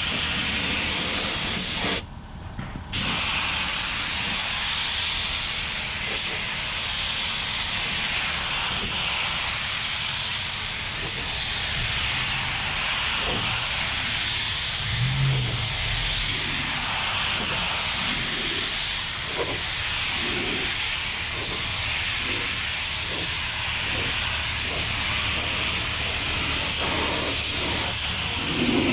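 Gravity-feed HVLP spray gun spraying automotive primer: a steady hiss of compressed air and atomized primer. It stops for about a second around two seconds in, then carries on.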